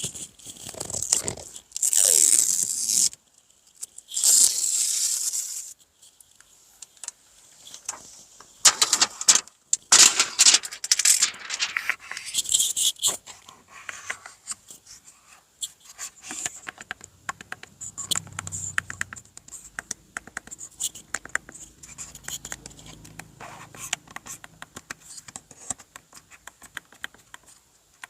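Plastic wrapping being torn and scraped in several long, noisy strokes, then a run of scattered small clicks and rattles.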